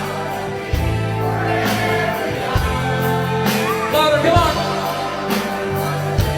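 Background pop music: synth chords and bass over a steady drum beat, with a singing voice about two seconds in.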